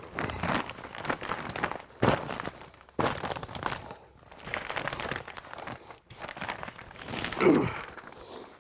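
Plastic-faced fiberglass insulation blanket crinkling and rustling in irregular bursts as it is shoved and laid into place between floor joists. A brief falling pitched sound comes near the end.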